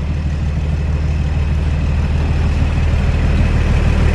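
Diesel engine of an SNCF X2200-class railcar (no. 2204) running as the railcar rolls slowly past close by: a steady low drone that grows slightly louder.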